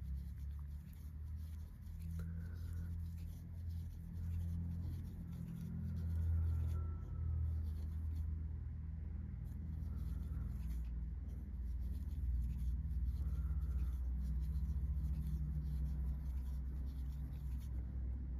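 A 1.9 mm crochet hook working white yarn through stitches: soft, repeated scratching and rubbing of yarn and hook, over a low steady rumble.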